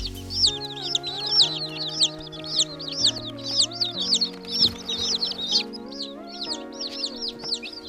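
A brood of day-old French Copper Marans and Welsummer chicks peeping nonstop: many high, short peeps overlapping, several a second, over background music.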